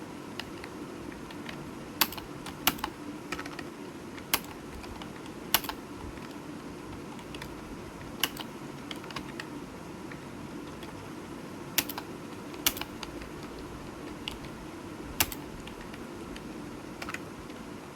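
Computer keyboard typing: irregular, unhurried keystrokes, with a few much louder clicks standing out among the softer ones, over a faint steady hum.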